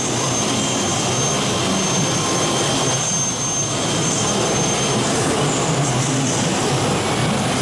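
Aluminium-profile CNC machining center running, with constant machine noise and a thin, high, steady whine from its HSD electro-spindle. The whine fades about five seconds in.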